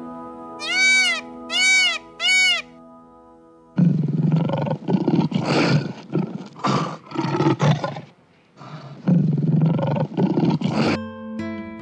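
Three short rising-and-falling peacock calls over soft music, then from about four seconds a lion growling and roaring in repeated rough bursts, with a short break near eight seconds.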